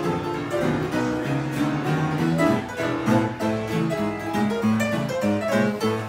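Upright piano played live, a busy tune of quick notes over a bass line that steps from note to note.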